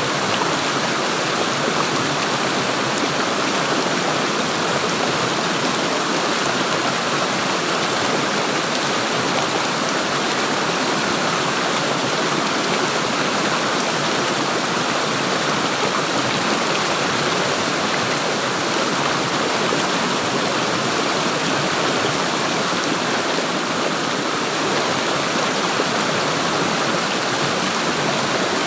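Running water of a stream, rushing steadily without change.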